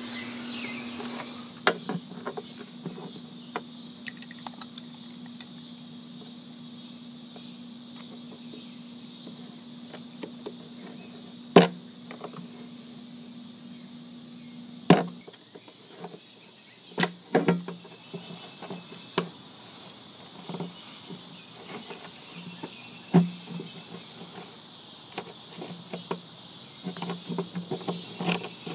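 Utility knife scoring and cutting rubber deck tread on an aluminum boat, with sharp clicks and knocks of the knife and metal square against the aluminum, quicker small clicks near the end. Insects chirp steadily in the background, and a low steady hum stops about halfway through.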